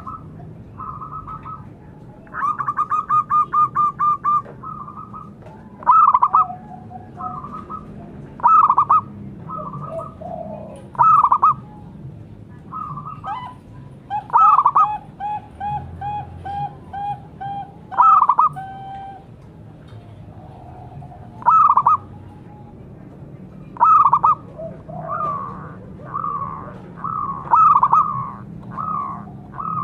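Zebra doves cooing: a fast run of about a dozen short notes about two seconds in, then loud short coos every two to three seconds. In the middle, two runs of notes at different pitches overlap.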